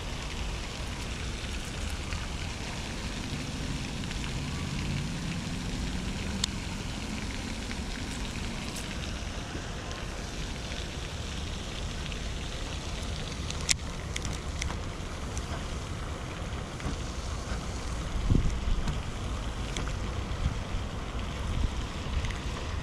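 Steady outdoor noise of wind on the microphone with a low rumble, and a few sharp clicks about 14 seconds in.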